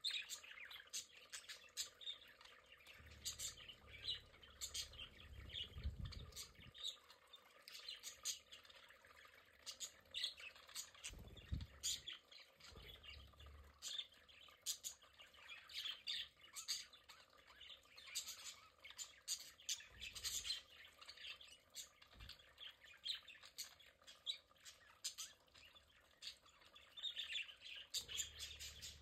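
A small flock of budgerigars chirping and chattering, with a constant stream of short, high chirps and squawks. A few brief low rumbles come and go underneath.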